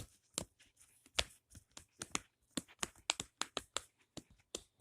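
Quick, irregular clicks and pops, about five a second, from fingers pressing down the bubbles of a pop-it fidget toy one after another.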